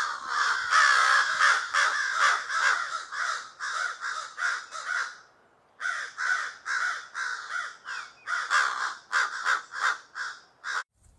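American crows cawing: quick runs of harsh caws, about three a second, breaking off once for a moment about five seconds in.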